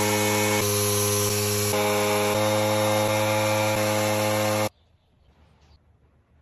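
Handheld power carving tool running steadily against wood, a hum with a hiss over it that shifts slightly in pitch a few times as the load changes. It cuts off abruptly about three quarters of the way through, leaving near silence.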